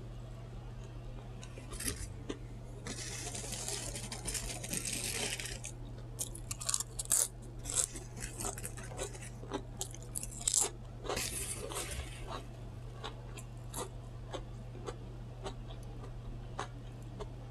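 Close-miked chewing and crunching of food, with many sharp crackly clicks, and a couple of seconds of rustling a few seconds in. A steady low hum sits underneath.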